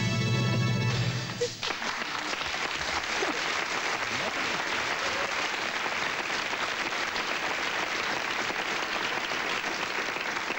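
A short music cue ends about a second and a half in, then a studio audience applauds steadily.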